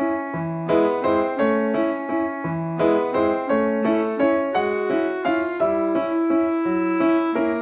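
Background piano music: a steady flow of single notes, about three or four a second, each struck and fading, over occasional lower bass notes.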